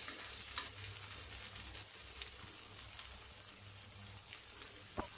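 Chicken breast, garlic and diced tomatoes sizzling steadily in butter in a frying pan. Metal tongs click lightly against the pan a couple of times, once near the end.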